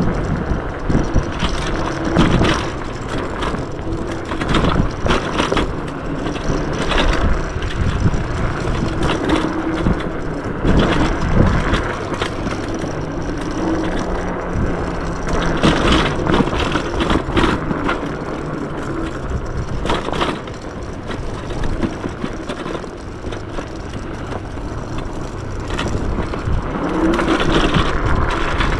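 Yume X11 electric scooter riding a dirt trail: a steady rumble of tyres and rushing air, broken by frequent knocks and rattles over bumps.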